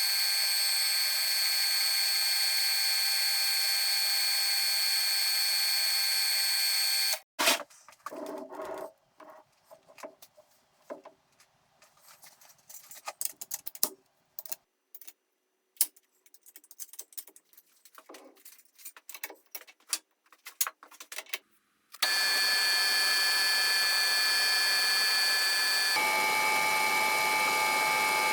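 Metal lathe running with a steady whine, stopping abruptly about seven seconds in. Then a stretch of scattered clicks and light metal knocks. Then the lathe runs again, its pitch changing a few seconds before the end.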